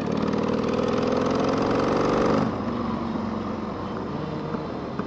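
Harley-Davidson Sportster's V-twin engine pulling under throttle, its pitch rising gently for about two and a half seconds, then dropping to a lower steady note.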